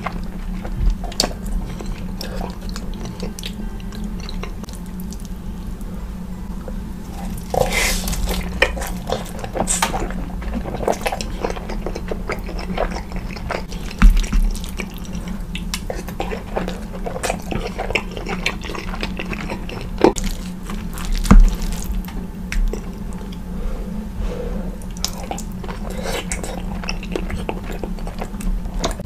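Close-miked wet eating sounds of lasagna: squishy chewing and lip smacking. A wooden utensil scrapes and knocks against a ceramic baking dish, with a few sharper knocks about halfway through and later. A steady low hum runs underneath.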